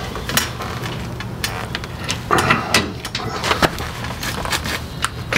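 Scattered metal clinks and knocks from hand tools against the F-150's front coil-over strut assembly as it is worked into place in the wheel well, over a low steady hum.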